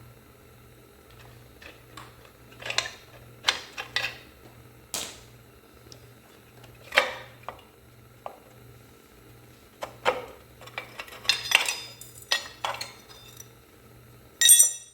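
Metal tools and parts clinking and clanking at irregular intervals during hand disassembly of a vehicle frame, with a sharp ringing metal clank near the end. A faint low hum runs underneath.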